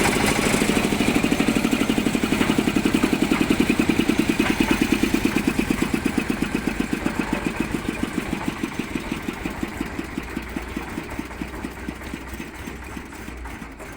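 Engine of a concrete mixer machine running with a rapid, even thumping beat, slowly fading away.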